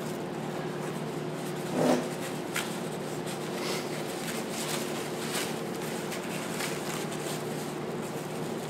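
Plastic and paper packing wrap crinkling and rustling as a small item is unwrapped by hand, with a soft thump about two seconds in, over a steady low hum.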